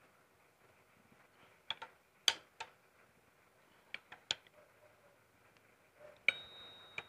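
Sharp metal-on-metal clinks of a steel screwdriver working against the timing gears of an Isuzu 6HH1 diesel engine block: about nine separate clicks in small clusters, with one near the end leaving a brief high ringing tone.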